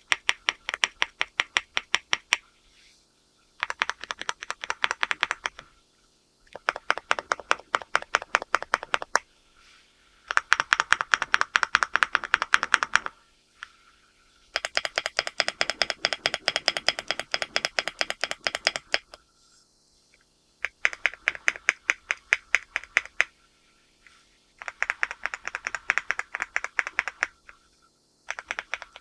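Typing on a LEOBOG Hi8 all-aluminium mechanical keyboard with Graywood V4 switches. The keystrokes come in quick runs of a few seconds each, with short pauses between them.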